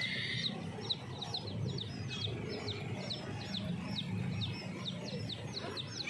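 Caged birds chirping steadily: short, high, falling chirps about three times a second.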